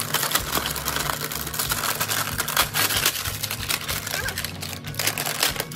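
Crinkly plastic wrapper crackling and rustling as it is pulled and cut off a toy egg, with a steady low hum underneath.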